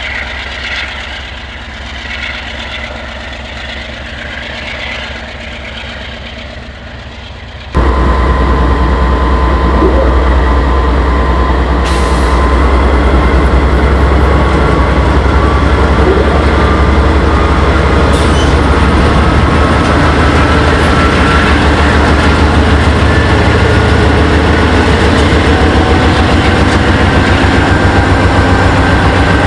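GE AC4400CW diesel locomotive working under throttle, fairly quiet. About eight seconds in, a sudden jump to the much louder sound of rebuilt GE AC4400 locomotives taking off close by, their 16-cylinder FDL diesel engines working hard. A faint whine rises slowly in pitch as they gain speed.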